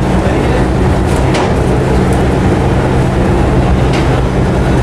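Steady low drone of a passenger ferry's engines running underway, heard from inside the passenger deck, with a couple of faint clicks.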